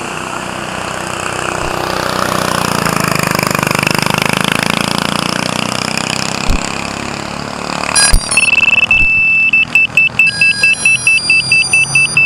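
A go-kart engine passing by, growing louder and then fading away. About two-thirds of the way in, a sharp knock is followed by a quick run of high electronic beeps, about four or five a second.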